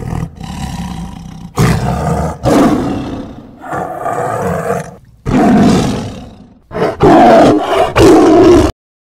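Tiger roaring again and again: about seven long, loud roars in quick succession, the last few the loudest, cutting off sharply near the end.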